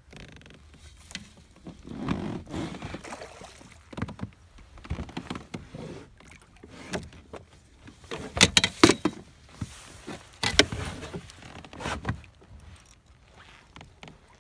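Irregular knocks, bumps and rustling of gear on a fishing kayak, with some water noise. A cluster of sharp knocks comes about eight to nine seconds in, and another around eleven seconds.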